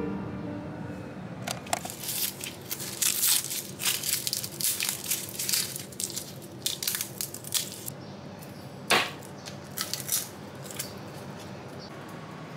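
Dry garlic skins crackling and rustling as fingers peel garlic cloves, in irregular bursts of papery crinkles, with one sharper crack about nine seconds in.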